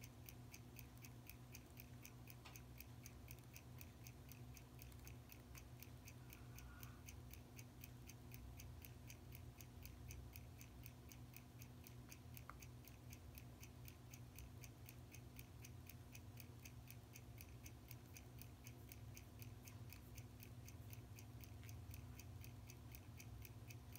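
Faint, steady ticking of a timepiece, several even ticks a second, over a low steady hum, with a tiny click or two of metal tools.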